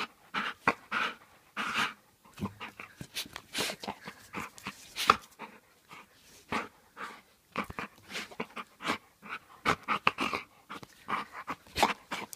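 Bull terrier panting hard right at the microphone: many short, quick, irregular breaths through its open mouth.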